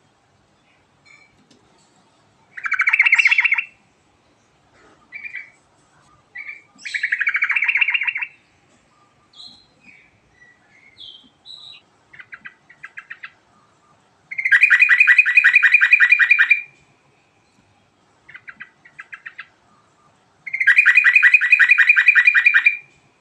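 Yellow-vented bulbul singing: short chirps and notes broken by four loud, rapid rattling trills, the last two the longest at about two seconds each.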